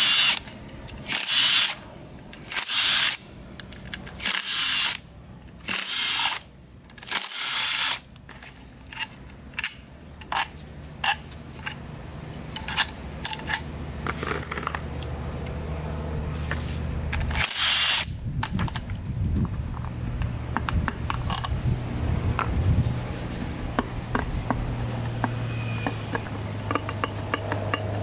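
Cordless impact driver run in short bursts, about six in the first eight seconds and once more about two-thirds of the way through, backing out the clutch cover bolts on a Yamaha YFZ450 engine. Between and after the bursts come small metal clicks and clinks as the loosened bolts are handled and set down. A low steady hum builds in the second half.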